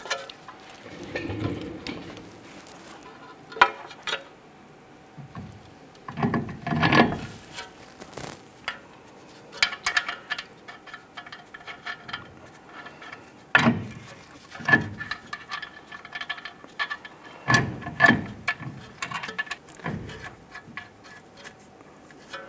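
Irregular metal clanks and knocks with short ringing, and scraping in between, as a heavy steel steering knuckle and hub assembly is handled and seated onto the suspension's lower and upper ball joints. The louder knocks come in pairs about a second apart, at intervals.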